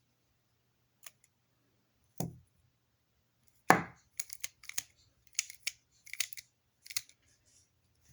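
Cheap spring-assisted stiletto-style folding knife being flicked open and closed: a few sharp metallic snaps, the loudest about three and a half seconds in, then a quick run of lighter clicks. The blade does not lock.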